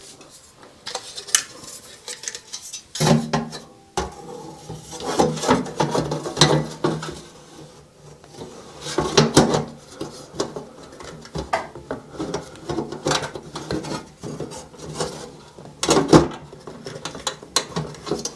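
Metal clinks, knocks and scraping as a replacement NuTone bathroom exhaust fan power unit is worked up into its sheet-metal housing in the ceiling. The knocks come irregularly, some louder than others.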